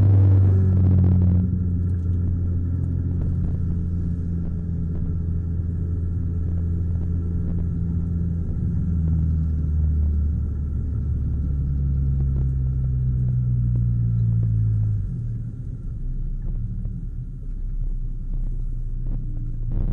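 Renault Clio 172's 2.0-litre four-cylinder engine heard from inside the cabin, running at low revs as the car drives slowly. The engine note shifts pitch a couple of times and drops to a lower idle-like rumble about three-quarters of the way through, after a short burst of rushing noise in the first second.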